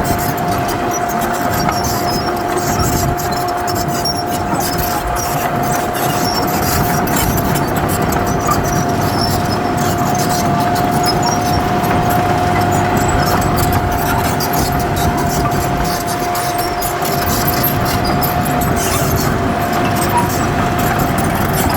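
Heavy earthmoving machinery working: a diesel engine running steadily under a constant high whine, with scattered clicks and rattles.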